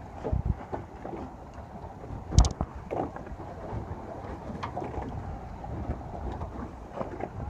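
Wind buffeting the microphone on a sailboat under way, with water splashing along the hull and one sharp, loud thump about two and a half seconds in.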